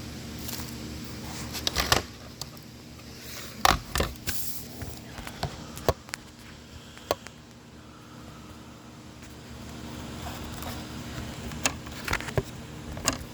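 Fisherman's Friend lozenge bag being handled, crinkling and clicking in irregular clusters, loudest about two and four seconds in and again near the end.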